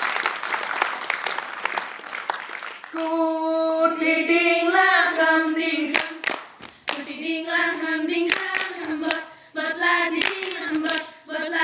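Applause for about the first three seconds, then a group of Saman dancers starting a chant in unison, singing together in a held, wavering melody broken by sharp hand claps and short pauses.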